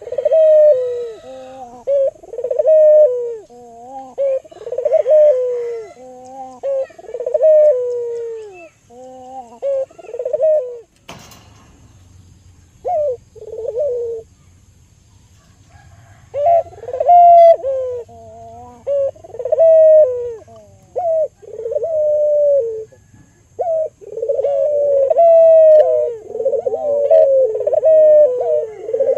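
Albino local Barbary dove (burung puter, a ringneck dove) cooing again and again in short phrases. A sharp click about eleven seconds in is followed by a pause of a couple of seconds, then the cooing starts up again.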